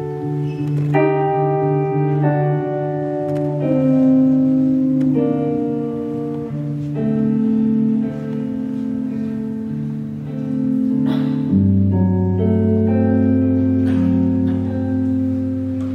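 Jazz big band playing a slow passage of held, sustained chords that shift from one to the next, the bass dropping to a lower note about eleven and a half seconds in.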